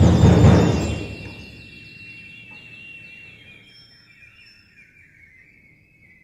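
Contemporary chamber ensemble playing: a loud, dense low chord dies away in the first second or so, leaving a thin high sustained line with rapid chirping flutters that slowly sink in pitch.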